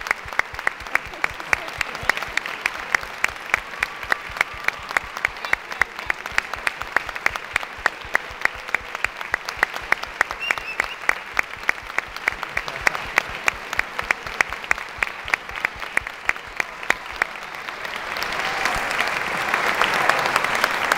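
Audience applause, with loud, evenly spaced claps at about four a second close by. The general clapping swells in the last few seconds.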